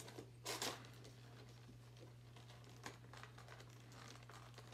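Faint handling noises of a Funko Pop box and its plastic box protector being worked open: a brief rustle about half a second in and a single click near three seconds, over a steady low hum.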